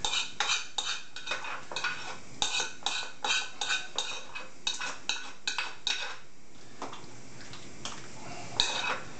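A knife scraping and knocking against a frying pan to empty fried vegetables (zazharka) into a pot of soup: quick metallic scrapes and taps, about three a second, for some six seconds, then a few scattered knocks.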